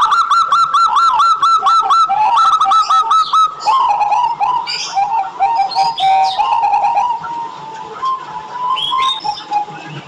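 Zebra dove (perkutut) cooing. A fast run of short, repeated arched notes, about five a second, gives way after a few seconds to lower, looser warbling coos.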